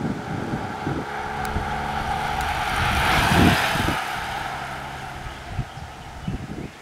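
Road racing cyclists sweeping close past, a whoosh of tyres and wind that swells and peaks about three seconds in. Under it a motor vehicle's engine hums steadily, fading toward the end.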